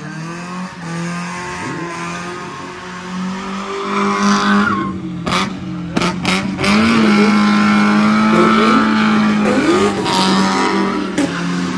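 Car drifting in tight circles: the engine is held at steady high revs while the rear tyres squeal and smoke, growing louder about a third of the way in. A few sharp pops sound near the middle.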